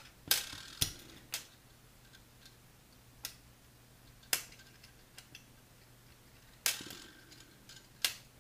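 Small metal clicks and clinks as steel circle hooks and a nickel titanium wire leader are handled and set against a desktop, about seven sharp ticks at uneven intervals.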